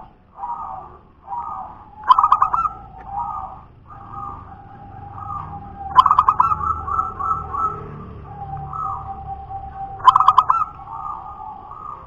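Zebra dove (perkutut) cooing. Three loud phrases, about four seconds apart, each a quick run of clipped notes trailing off into softer coos, with quieter notes between them.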